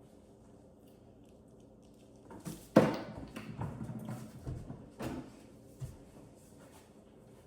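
A sharp knock about three seconds in, then a couple of seconds of irregular clattering and handling noise, with a second knock and a small click a little later: things being knocked against and moved about by hand.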